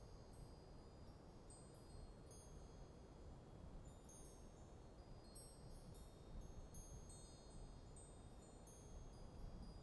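Wind chimes tinkling faintly and irregularly as a light breeze moves them, many short high ringing notes overlapping, over a low steady rumble of wind.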